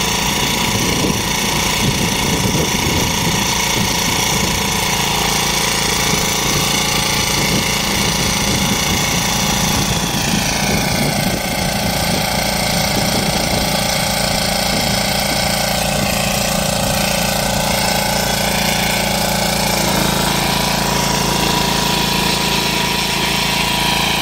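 Engine of a 9 HP agri-cart power weeder running, with rapid low pulsing. Its pitch dips and climbs again about ten seconds in, and its low note changes about twenty seconds in.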